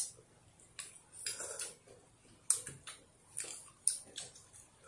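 Spoons clinking against small ceramic soup bowls: a few sharp, irregular clinks a second or so apart, with soft scraping between them.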